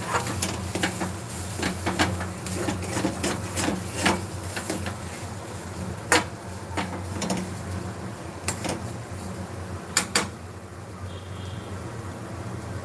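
Kitchen clatter: irregular clicks and knocks of cookware and utensils being handled, over a steady low hum. The knocks thin out over the last few seconds.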